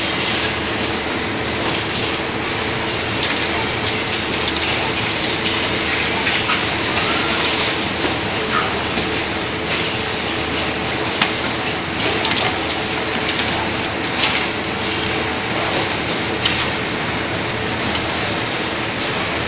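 Vial conveyor and inspection machine running: a steady mechanical rattle and hum from the mesh-belt conveyor and rollers, with irregular sharp clicks and clinks of glass vials knocking together as they are carried along.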